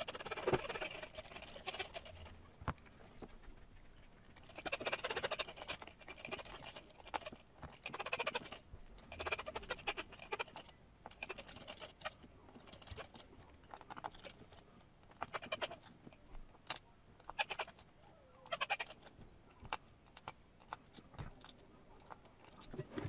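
Hex driver turning the small beadlock-ring screws of a 1.9-inch steel beadlock wheel by hand: short squeaks and scraping in clusters every second or two, with scattered light clicks of the tool against the screws and ring.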